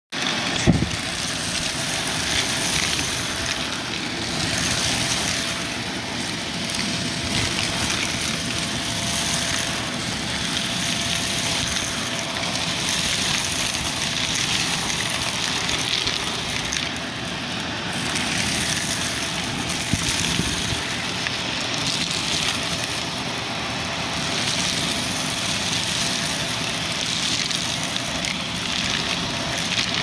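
Shark Navigator upright vacuum running steadily with its brushroll, with a constant motor whine and crackling and rattling as it sucks up sand, beads, buttons and other small debris from carpet. A single knock about a second in.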